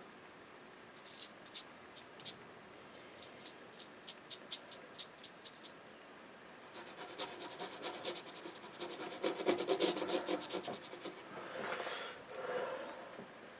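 Rigger brush working on watercolour paper: scattered light taps at first, then a spell of rapid scratchy strokes from about seven seconds in, and two softer rubbing swells near the end.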